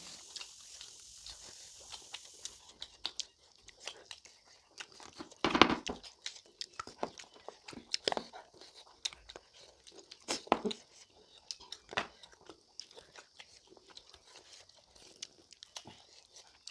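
Close-miked eating: two people chewing smoked pork and rice with wet mouth noises, lip smacks and scattered sharp clicks, with one louder burst about five and a half seconds in.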